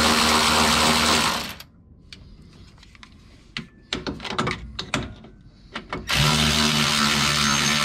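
Milwaukee cordless electric ratchet spinning motor-mount bolts in: a steady motor whine that stops about a second and a half in, then starts again about six seconds in. Scattered clicks and knocks of the tool on the bolts in between.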